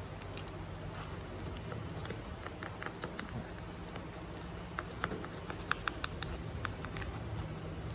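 Light, scattered clicks and scratches of a screwdriver on small metal parts as a motorcycle throttle housing is taken apart by hand. The clicks come thickest about two seconds in and again from about five seconds, over a faint steady low hum.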